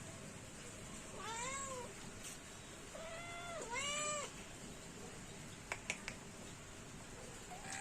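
Kitten meowing: one rising-and-falling meow, then about a second and a half later two more meows in quick succession. A few sharp clicks come a little later.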